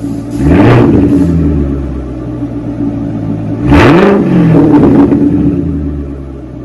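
2019 Chevrolet Corvette Grand Sport's 6.2-litre LT1 V8, its exhaust running through muffler delete pipes with the active exhaust valves deleted, revved twice from idle. There is a quick rev about half a second in and a longer one about four seconds in, each rising sharply and falling back to a steady idle.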